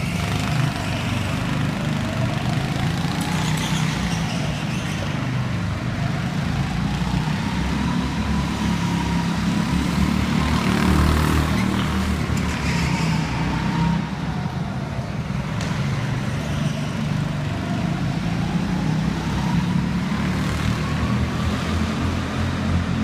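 A go-kart lapping a track, its motor whine rising and falling in pitch as it speeds up and slows for the corners, over a steady low rumble.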